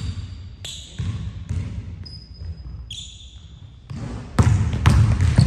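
Basketball being dribbled on a hardwood gym floor, its bounces echoing in the hall, with quicker, louder bounces from about four seconds in. High sneaker squeaks on the wood come in between, each lasting up to about a second.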